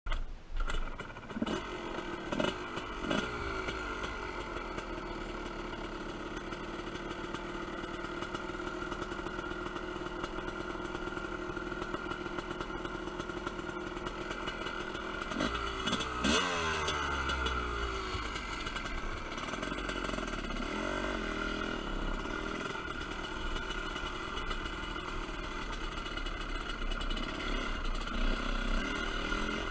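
TM Racing 250cc dirt bike engine: a few quick throttle blips, then a steady idle. About halfway through it is revved hard twice, and after that the engine note rises and falls as the bike is ridden.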